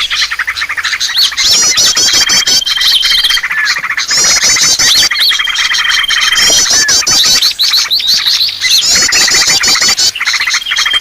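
Dense, busy chorus of small songbirds chirping and trilling, played as a bird-lure (pikat) recording, with the same phrases, a rippling trill and a high held whistle, coming back every few seconds.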